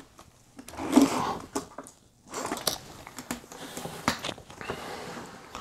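A tape measure and a fabric tool tote being handled: scattered clicks and rustling, with short rubbing bursts about a second in and again around three seconds.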